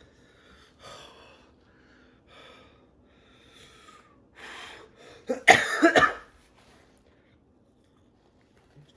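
A man breathing hard through his mouth, then a short, loud fit of coughing about five and a half seconds in, brought on by the burn of extremely hot Carolina Reaper chicken wings.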